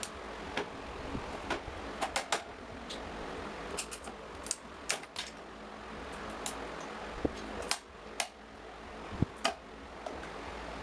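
Irregular sharp metallic clicks and clinks of small metal parts and tools being handled during work on an old electric fan, about twenty in all and some in quick pairs, over a steady hiss with a low hum.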